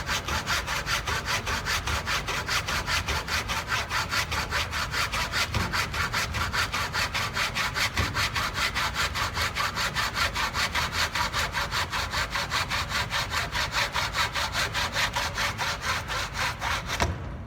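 Hand saw cutting across a clamped wooden board along a 45-degree line, in fast, even strokes about five a second. The sawing stops near the end as the cut is finished.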